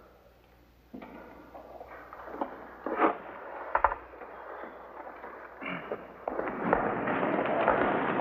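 Scattered knocks and thumps, the loudest about three and four seconds in. From about six seconds in, a steady hubbub of many people walking and talking builds up.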